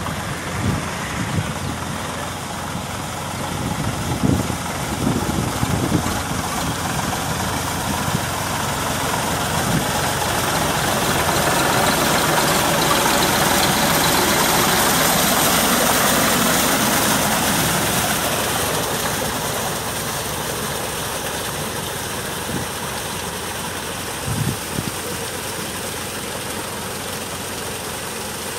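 Sonalika DI 47 RX tractor's diesel engine running steadily under load while its rotavator churns the mud and water of a flooded paddy field during puddling. It grows louder midway as the tractor passes close, then eases off.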